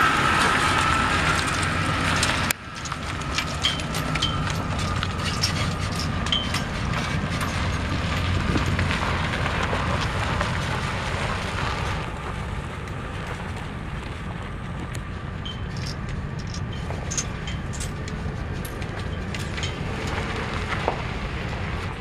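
Ford F350 Super Duty pickup with a 5.4-litre V8 gas engine running as it drives across a dirt and gravel yard. Its tyres crackle and pop over the gravel with many small clicks.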